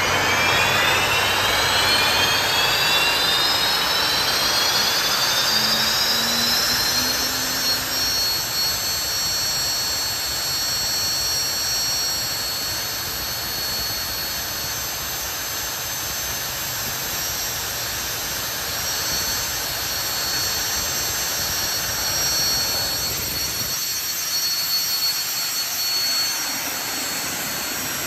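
Lycoming T55-L-7C turboshaft engine spooling up: its turbine whine rises steadily in pitch for the first several seconds, then holds at a steady pitch as the engine settles into a steady run, over an even rushing noise.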